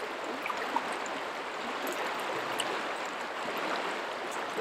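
River current flowing past in a steady, even rush of water, with a few faint ticks.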